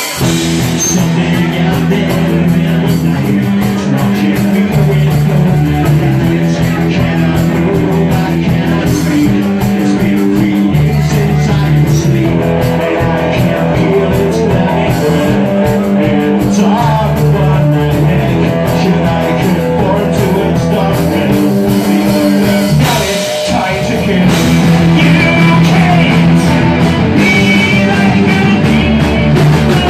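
Rock band playing a song live: electric guitars, bass guitar and drum kit, the bass moving in steady stepped notes. About two-thirds of the way through the band drops out briefly, then comes back louder.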